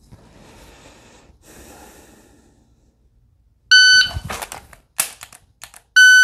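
AMG Lab Commander shot timer sounding its start beep about 3.7 s in, then a quick run of sharp clicks and knocks as a pistol is drawn and the trigger is dry-fired, then the timer's par-time beep about 2.3 seconds after the start beep. The dry-fire presses finish just before the par beep, beating the 2.25-second par time.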